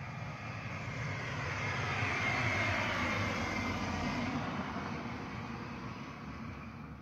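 A passing vehicle: a rushing rumble that swells to a peak about two to three seconds in, then slowly fades away.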